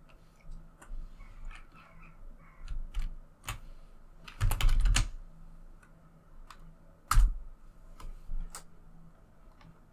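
Computer keyboard being typed on: scattered single keystrokes, with a quick run of them about four and a half seconds in and one loud click a little after seven seconds.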